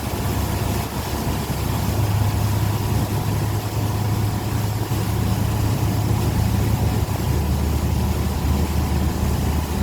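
Tow boat's engine running steadily under load while pulling a water-skier, with wind and water rushing. Its pitch drops a little about seven seconds in.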